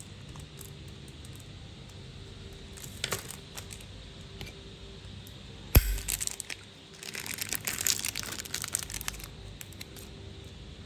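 Handling of a Zippo lighter: a few faint clicks, then one sharp metallic clack with a thump about six seconds in, followed by a couple of seconds of small rustling clicks.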